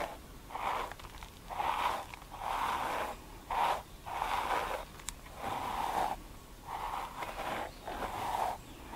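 Bristle hairbrush drawn repeatedly through a thick beard, a rough brushing stroke about once a second, roughly a dozen in all.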